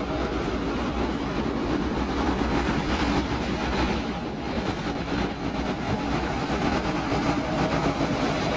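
Colas Rail Class 60 diesel locomotive approaching, its eight-cylinder Mirrlees diesel engine running steadily as it hauls a loaded log train, with the rumble of wheels on the rails.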